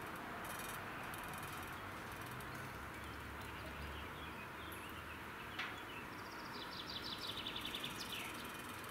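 Small songbirds chirping over a steady rushing background noise. There is a single sharp call a little past halfway, and near the end a quick run of about eight chirps a second.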